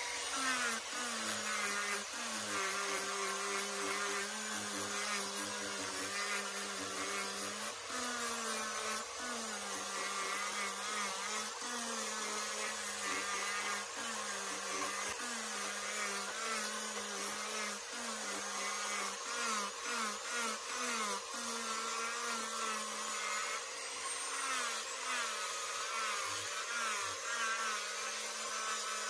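Electric angle grinder with a sanding disc, switched on at the start and sanding buffalo horn and the wooden joint between the horns. Its motor pitch dips and recovers again and again as the disc is pressed onto the work.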